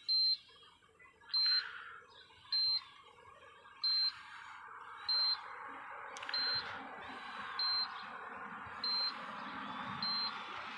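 Short, high electronic beep repeating evenly about every 1.2 seconds, nine beeps in all, like a warning chime or a beeper left on with the ignition on.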